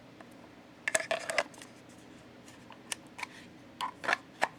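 Scattered light clicks and taps of knives being handled, a small cluster about a second in and several single clicks after.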